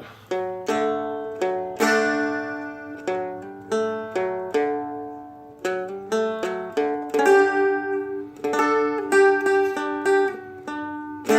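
Seagull Merlin M4 (a four-string strummed dulcimer) strummed through a chord passage: repeated strokes whose notes ring between them, with the chord changing several times.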